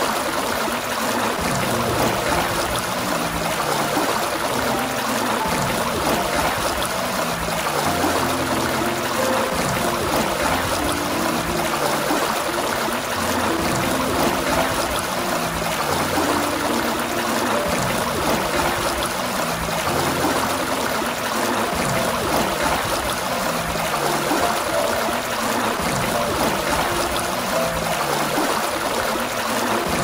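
Water gushing steadily from a fountain spout in a continuous splashing flow, with soft, held low musical notes under it.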